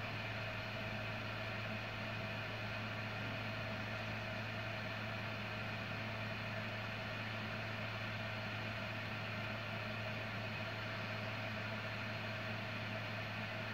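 Steady machine hum: a low drone with fainter, higher steady tones above it, unchanging throughout.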